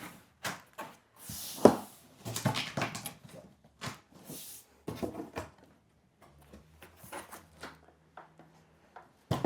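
Corrugated cardboard tabs being folded and pushed into place: irregular creasing, scraping and rustling, with one sharp knock a little under two seconds in.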